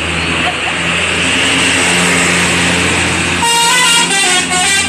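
A bus's multi-tone 'telolet' musical horn plays a melody of several tones that change pitch in steps, starting about three and a half seconds in. Before it comes a loud steady rush of noise over a low hum.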